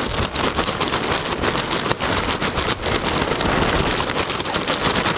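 Bark mulch chips pouring out of a bag onto a mound of peat around a rose bush: a continuous dense stream of small dry ticks.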